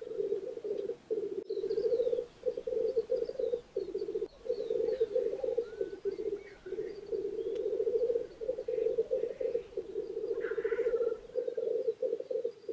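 Male black grouse rookooing at a lek: a continuous, dove-like bubbling coo with a fast pulsing warble, broken only by short pauses as the birds take breath. A brief higher rasping call comes about ten and a half seconds in.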